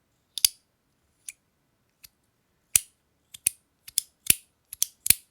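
Compoform OG fidget slider snapping back and forth: a dozen or so sharp, crisp snaps at uneven intervals. They come more thickly in the second half.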